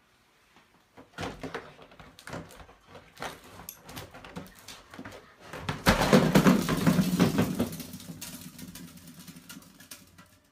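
German shepherd pouncing on and knocking around an empty cardboard box on a wooden floor: a run of knocks, taps and scrapes. The sounds are loudest and busiest about six to eight seconds in, then thin out.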